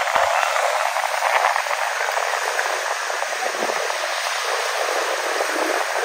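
Small waves breaking and washing up on a sandy shore, heard as a steady rushing hiss with no bass.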